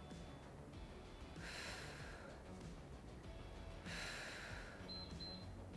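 A woman's breathing during seated exercise: faint, soft breaths roughly every two and a half seconds. Near the end come a few faint, short, high beeps as the interval timer runs out.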